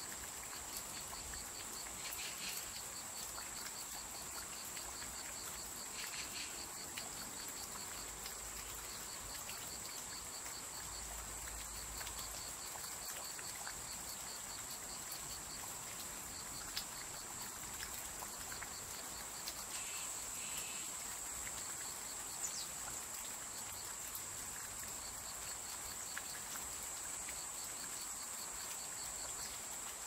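Autumn crickets singing in a steady chorus: a continuous high-pitched shrill with a fast pulsing trill below it, over a soft even hiss. A few short bird calls break in, about 2 and 6 seconds in and again around 20 to 22 seconds.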